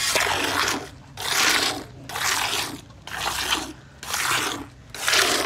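Milk squirted by hand from a cow's teats into a metal pail already holding frothy milk: a hissing spray about once a second, six squirts in all.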